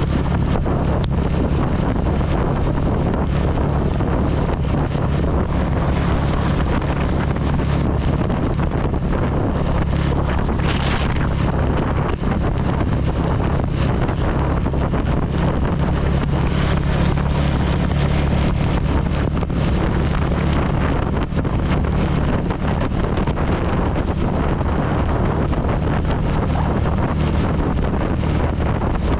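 CB 250 motorcycle engine running steadily under way. Wind noise buffets the helmet-mounted camera microphone, and rain patters against it in many small ticks.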